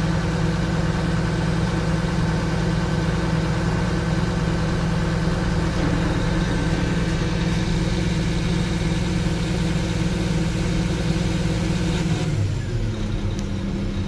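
Caterpillar C9.3 six-cylinder diesel engine of a 966M wheel loader running steadily at a raised idle during an ARD ignition test. About twelve seconds in, the engine speed drops to a lower idle as the test ends in failure.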